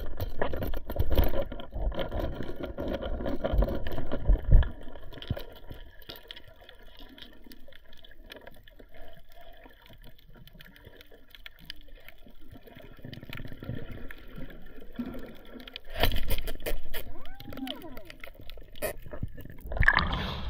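Muffled underwater sound picked up through an action camera's waterproof housing: water rushing and knocking against the housing with some gurgling, loudest in the first few seconds, then quieter. Near the end there is a loud rush of water as the camera breaks the surface.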